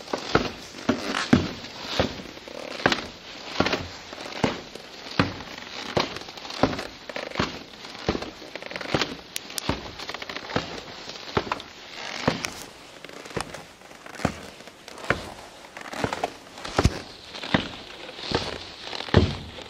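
Footsteps at a steady walking pace, a little more than one step a second, each step a short sharp impact.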